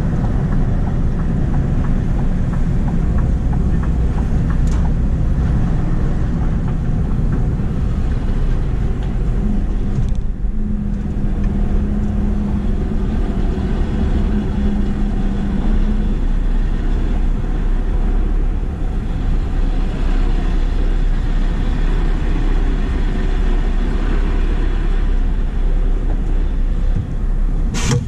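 Scania R520's V8 diesel engine running as the truck and trailer move at low speed, a dense low rumble with a steady hum between about 10 and 16 seconds. A single sharp click comes just before the end.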